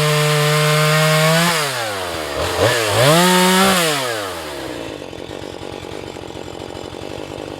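Husqvarna 435 two-stroke chainsaw running at full throttle in a cut, coming off the throttle about a second and a half in, revving up once more briefly, then dropping to idle for the rest.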